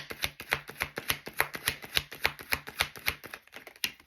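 A tarot deck being shuffled by hand, the cards slapping in a quick, even rhythm of about four or five a second, slowing and stopping near the end.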